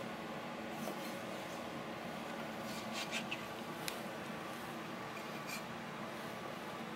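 Chef's knife on a plastic cutting board: a few light taps and clicks as food is cut and gathered, over a steady room hum.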